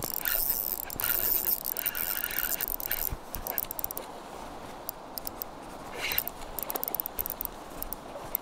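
Handling noise on a body-worn action camera: a hand scraping and rubbing on the camera close to the microphone, a dense run of scratchy clicks for about the first three seconds, then scattered clicks and a short burst of scraping a little later, over the steady wash of a river.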